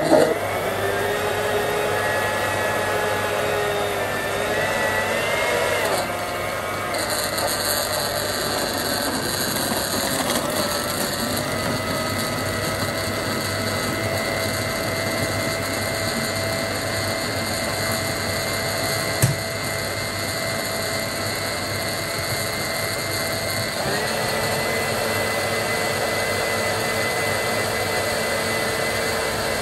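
Countertop blender motor starting abruptly and running at high speed, blending ice cubes and fruit chunks into a smoothie. Its whine wavers for the first few seconds, then settles into a steady whine that shifts pitch a couple of times, with one sharp click about two-thirds of the way through.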